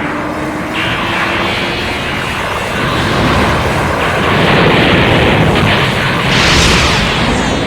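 Dragon Ball Z anime sound effect: a loud, continuous rumbling blast of noise, like an energy attack or explosion, with a hissing upper layer that comes in under a second in, grows louder about three seconds in and swells again near the end.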